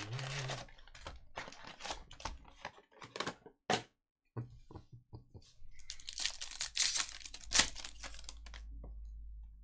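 Foil-wrapped Panini Prizm basketball retail packs being handled: scattered clicks and rustles as packs are pulled from their cardboard box, then denser crinkling and tearing as a pack wrapper is ripped open in the second half.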